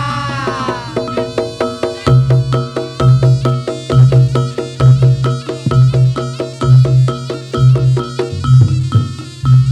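Javanese gamelan music played through a loud sound system: rapid, repeated metallophone notes over a deep drum beat about once a second. A sliding melodic line fades out in the first second.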